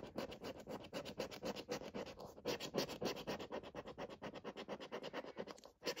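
A coin scratching the latex coating off a paper scratchcard in quick back-and-forth strokes, about seven a second, with short pauses about two seconds in and again near the end.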